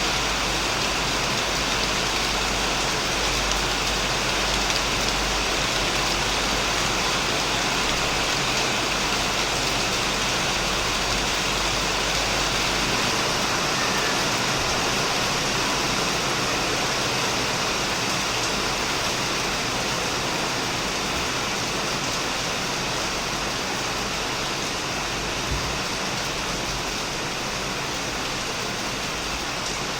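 Heavy rain falling steadily on a shed roof and plants, an even unbroken hiss. A low rumble underneath fades out about halfway through.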